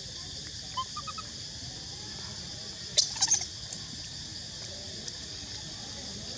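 A monkey's short, sharp squealing calls: a few faint chirps about a second in, then a louder shrill cluster about three seconds in, over a steady drone of insects.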